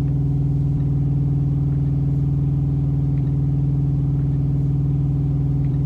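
A steady low mechanical hum, unchanging in pitch and level.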